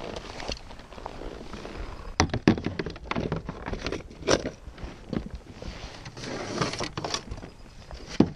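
Knocks, thumps and rustling of gear being handled on a plastic kayak as the paddle is laid across it and a plastic fish-measuring board is pulled out. The sharpest knocks come about two seconds in, around four seconds and near the end.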